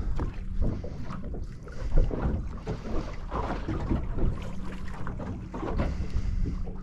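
Irregular knocks and clunks of gear being handled on a small boat's deck, with wind buffeting the microphone. A low steady hum grows stronger about four seconds in.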